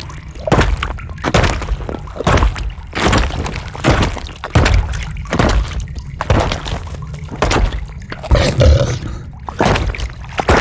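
Designed cave-creature sound effects: a string of short wet crunches, cracks and thuds, about one every half second to a second, over a steady low rumble.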